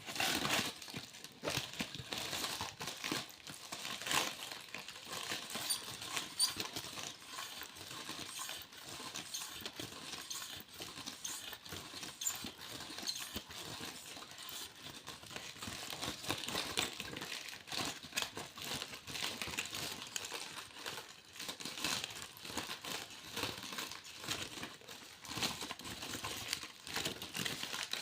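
Aluminium foil being crinkled and crumpled by hand, a continuous dense crackle of small sharp clicks.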